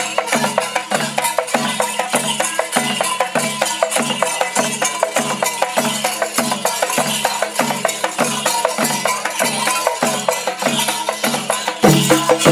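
Kerala folk music (nadan pattu) driven by drums and rattling percussion: dense rapid strokes over a steady low beat, a little over two strokes a second. Near the end it gets louder, with a deeper bass.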